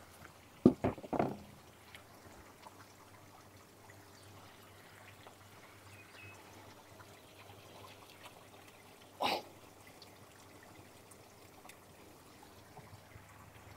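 Water trickling steadily through a hydroponic tower system. A few sharp clicks come about a second in and a short burst of noise about nine seconds in as the sweet potato vines are handled.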